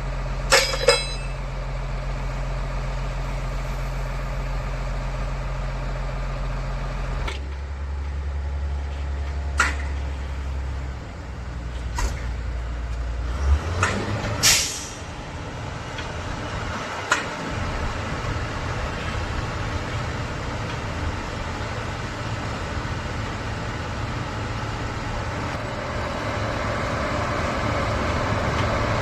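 Heavy diesel engine running, its note shifting twice, once about seven seconds in and again near fourteen seconds, with a few sharp metal clanks and a brief hiss in the middle.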